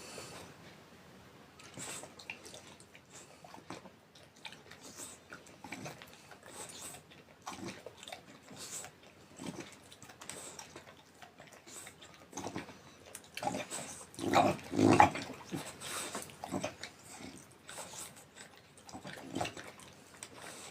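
French bulldog snoring in its sleep: a string of irregular noisy snores, the loudest a pair about fourteen and fifteen seconds in.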